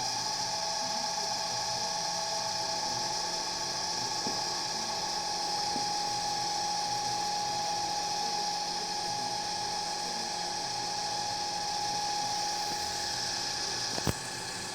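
A machine's steady high-pitched whine, holding one pitch after rising just before, with a single sharp click near the end.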